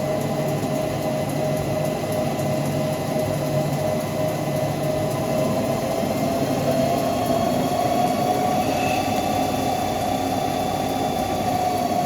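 CNC lathe running while machining a pinion: a steady machine drone with a whine that rises slightly in pitch partway through.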